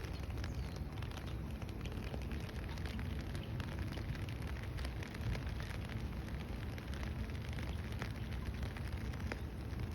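Steady rain falling, a dense hiss with many small drop ticks over a low rumble.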